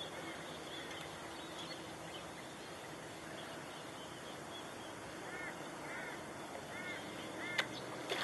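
A bird calling in short, arched notes: a few faint calls at first, then a run of about five clearer ones in the second half, over a steady low hiss. A single sharp click near the end is the loudest sound.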